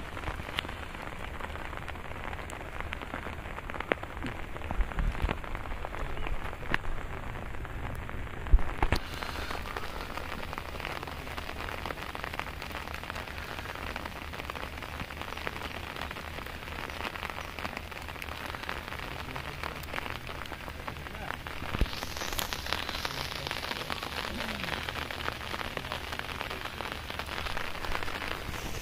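Steady rain falling on the standing water of a flooded rice field, with a few short sharp knocks in the first nine seconds.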